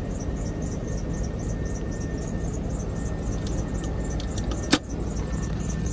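A high-pitched squeak repeats about three times a second inside a 2002 Cadillac Escalade, over a steady low rumble. One sharp click comes near the end.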